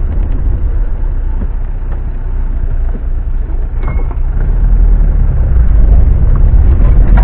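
Off-road vehicle's engine and drivetrain rumbling, heard from inside the cab as it drives along a rutted dirt forest track. A few light knocks come through, with a brief squeak about four seconds in, and the rumble grows louder in the second half.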